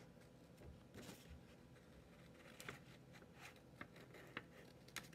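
Craft scissors cutting paper: about six faint, sharp snips at uneven intervals.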